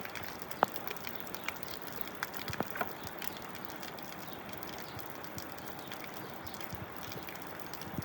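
Steady rain with scattered sharp drips and taps, a few louder ones about half a second in and between two and three seconds in.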